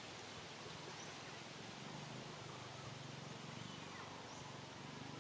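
Faint outdoor ambience: a steady hiss with a low hum and a few faint, short, high chirps.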